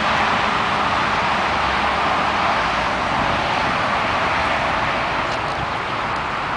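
Freeway traffic noise: a steady hiss and rumble of passing vehicles.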